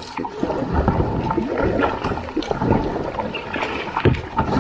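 Kayak paddling: paddle strokes dipping and splashing in the water, with water sloshing and gurgling around the hull and irregular light knocks.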